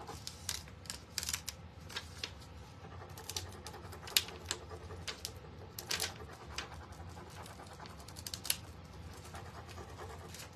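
Rub-on transfer being burnished onto a wooden cutting board and its clear plastic backing sheet lifted off: irregular scratching, taps and sharp crinkles of the plastic sheet under the fingers and rubbing tool.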